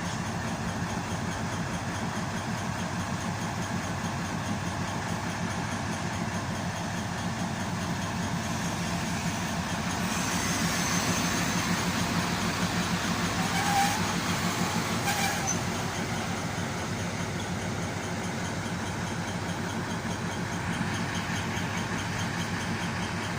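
A train running at a station: a steady low machine hum that swells in the middle, with a short squeal and a couple of clicks partway through.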